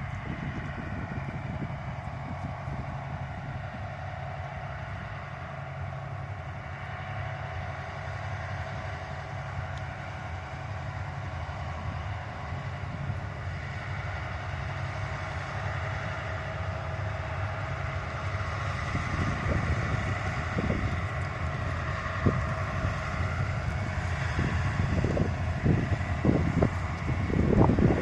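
Freight train's diesel locomotive engine running with a steady, many-toned drone that slowly grows louder. Wind buffets the microphone in gusts near the end.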